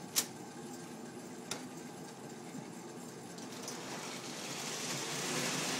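Model train running on its track, its hiss growing louder toward the end as it nears, with a sharp click near the start and another about a second and a half in.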